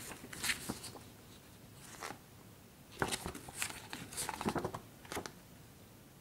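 Glossy magazine pages being handled and turned: a handful of short paper rustles and flaps, most of them bunched together in the second half.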